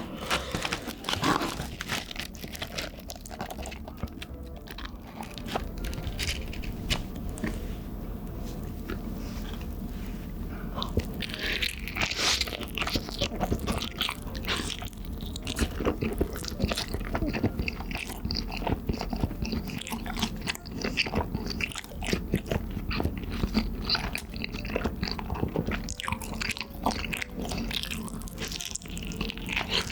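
Close-miked mouth sounds of eating Chicago-style cheese and meatball pizza: bites and chewing, with many short clicks and smacks.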